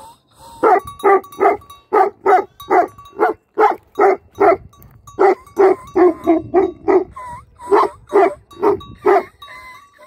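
A shepherd's guardian dog barking in a long run of about twenty barks, roughly two a second with brief pauses, with short whines before the barking and again near the end.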